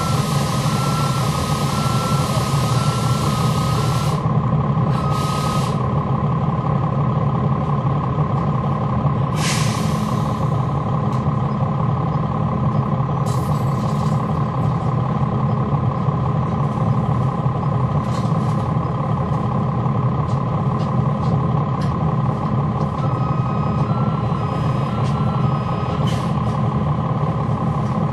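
Cummins ISL9 diesel engine of a NABI 40-foot transit bus running steadily with its engine fans on, heard from on board. A hiss of air cuts off about four seconds in, and short bursts of air hiss follow near ten and fourteen seconds. An intermittent beeping tone sounds at the start and again about two-thirds of the way through.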